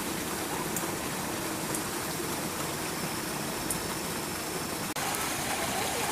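Steady rushing background noise, like running water, with no clear event standing out; it changes abruptly at an edit about five seconds in.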